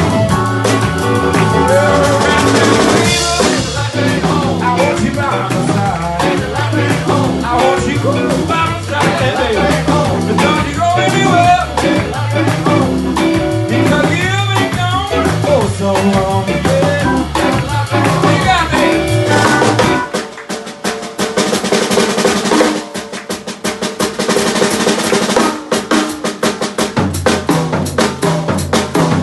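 Live soul-blues instrumental: an electric guitar solos over organ chords and a drum kit. About two-thirds through, the guitar and organ drop out, leaving the drums playing alone, and low organ notes come back near the end.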